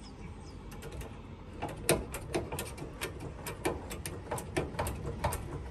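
Trail-A-Mate hydraulic jockey-wheel jack being pumped by hand to lift the car, its mechanism clicking rapidly and evenly at about four clicks a second, starting about a second and a half in.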